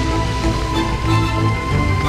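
Background music with held notes that change pitch in steps.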